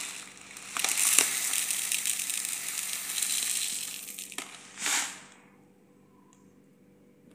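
Dry red lentils pouring from a plastic bag onto cubed potatoes in a plastic bowl: a steady hiss of grains pattering down for about three and a half seconds, with scattered clicks, then a short rustle about five seconds in.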